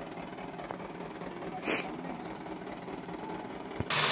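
Dump truck engine running steadily, with a short hiss about halfway through. Just before the end a sudden, much louder rush of noise starts.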